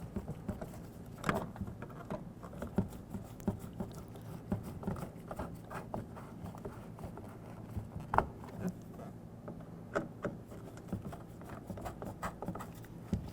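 Screws being driven by hand into a plastic interior door panel: many light, irregular clicks and taps of the screwdriver and plastic parts.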